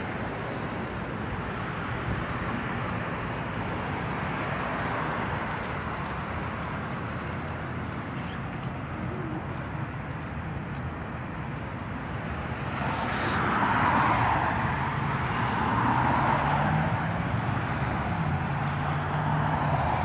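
Road traffic: a steady wash of passing cars that swells about 13 seconds in as a vehicle goes by close, with an engine note rising in pitch near the end.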